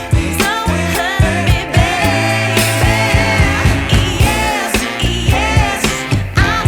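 Background pop song: a singer over a steady beat and bass line.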